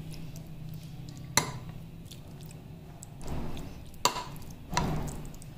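Metal ladle spreading chicken mince over lasagna in a glass baking dish: soft squelching scrapes, with three sharp clinks of the ladle against the glass, one about a second in and two near the end, over a steady low hum.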